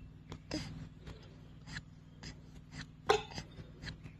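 Faint, scattered short clicks and knocks over a steady low hum, the strongest about three seconds in.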